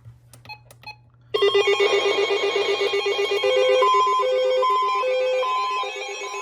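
Weather-alert radio receivers sounding their alert alarms for an incoming warning: after a few faint clicks, a loud electronic tone starts about a second in, with beeps alternating between two pitches over a steady buzzing tone.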